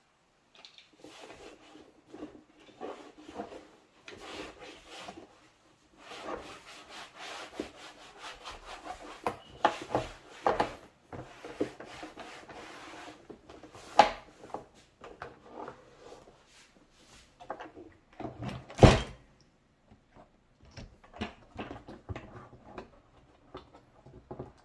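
Hand wiping and scrubbing a BMW E36 door card's plastic and leather with a soapy cloth, in uneven strokes with short pauses. Two sharp knocks in the second half, the second one the loudest.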